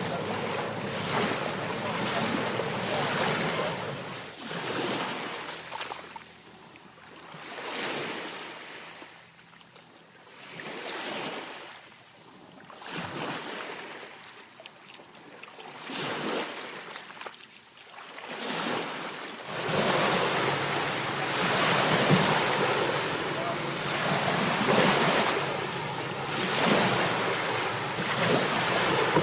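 Ocean surf: waves breaking and washing in, swelling and ebbing every two to three seconds. About two-thirds of the way through the wash turns louder and more continuous.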